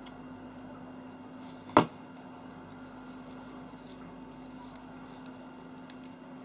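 A single sharp knock about two seconds in, over a steady low hum, with a few faint ticks.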